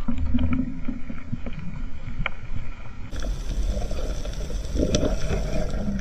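Muffled underwater noise picked up by a camera in a waterproof housing as the diver moves through the water: a steady low rush with a few light clicks.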